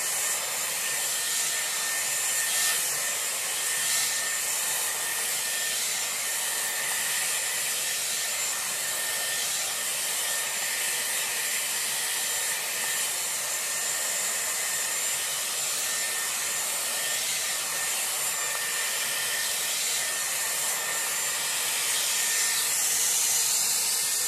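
Dyson Airwrap running with its round brush attachment as it dries and shapes a section of hair: a steady rush of air with a thin, high, constant whine over it.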